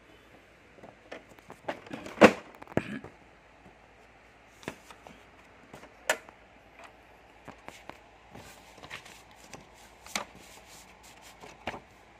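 Hands handling paper and the plastic body of an inkjet printer: irregular clicks, taps and light knocks, the loudest knock about two seconds in.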